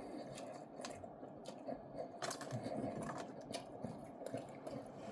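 A person chewing food close to the microphone, with scattered small wet clicks.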